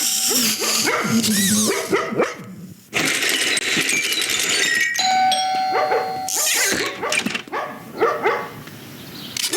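Dog barking and whining in short, pitch-sliding calls, with a bell-like ringing about halfway through.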